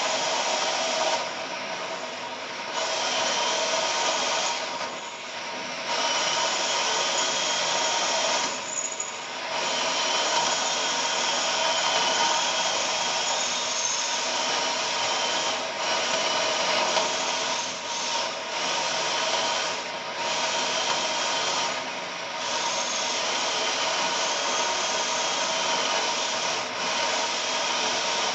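Power drill with a titanium-coated high-speed steel bit grinding into a safe's steel, its motor whining steadily under load. The noise drops off briefly about eight times and then picks up again.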